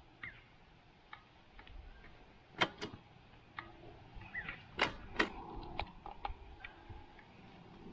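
A few sharp clicks, four of them louder, from the dirt bike's handlebar starter switch and ignition key being worked while the engine is not running.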